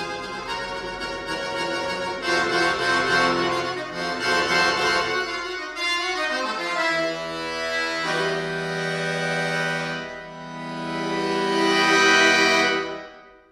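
Chromatic button accordion (bayan) played solo: changing notes, then long held chords from about seven seconds in. The last chord swells loud and breaks off just before the end as the piece finishes.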